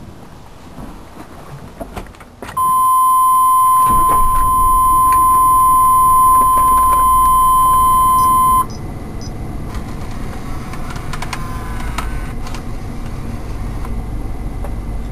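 A loud, steady electronic beep tone inside a 1999 GMC Suburban's cabin. It starts a few seconds in and cuts off abruptly after about six seconds. A low rumble from the running truck starts a second after the tone and carries on underneath it and after it.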